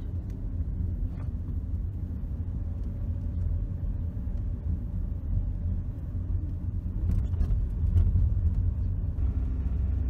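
Old car driving slowly, heard from inside the cabin: a steady low rumble of engine and tyres, with a few light knocks and a brief swell about seven seconds in.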